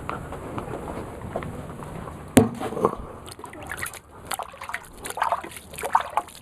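Water being sloshed and splashed onto a freshly sawn black walnut board, with a single sharp knock about two and a half seconds in.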